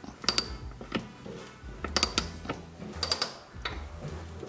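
Old ratchet-and-pawl lever jack, an antique car jack, being worked by hand under load: clusters of sharp metallic clicks and clanks with a short ringing tail, about once a second, as it jacks the loader arm loose from its bracket.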